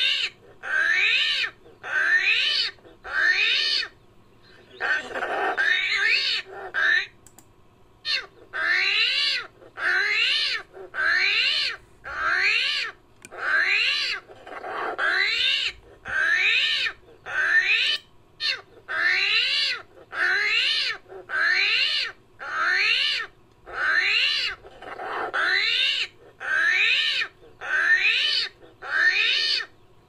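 Created creature sound effect for a nine-banded armadillo: a long string of pitched cries, each with a wobbling pitch, repeated about once a second, with a couple of short breaks a few seconds in.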